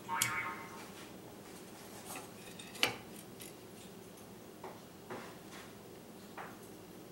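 A plunge router and its metal jig plate handled by hand: a short squeak right at the start, then scattered light metallic clicks and taps, the sharpest about three seconds in.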